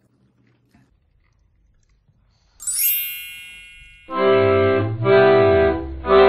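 Edited-in sound effects: about two and a half seconds in, a bright sparkling chime rings and fades. From about four seconds in come three loud held chords on an organ- or accordion-like keyboard instrument, each about a second long, with the bass dropping under the second, like a comic dramatic sting.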